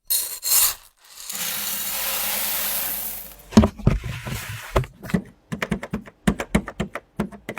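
A sequence of coffeeshop foley recordings: a short rustle, then a steady hiss with a low hum under it lasting about two seconds, then a run of irregular clicks and knocks.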